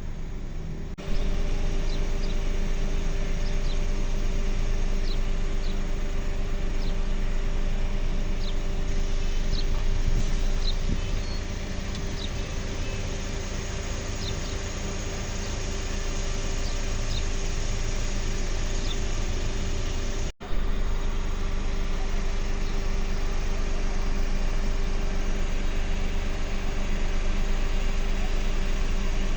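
An engine running steadily with a constant hum, with short high chirps over the first half and a brief dropout about two-thirds of the way through.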